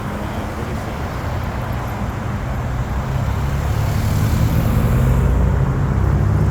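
Road traffic: passing vehicles with a low engine hum that grows louder from about halfway through as a vehicle comes near.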